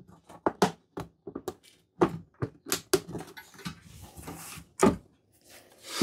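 Black plastic cover of a Vevor 8 kW diesel heater being pressed and snapped into place by hand: a series of irregular clicks and knocks, with a stretch of rustling about four seconds in.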